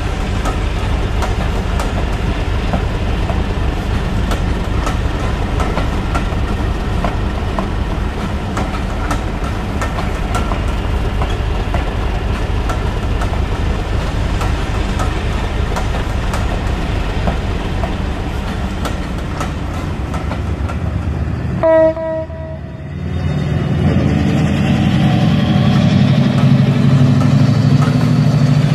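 Diesel locomotive running sound: a steady low rumble with scattered clicks from the wheels on the track. About 22 seconds in, a short single horn blast sounds, then a second, louder diesel engine drone builds up.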